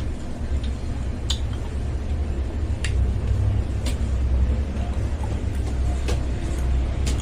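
A steady low rumble, with a few short, light clicks and clinks scattered through it.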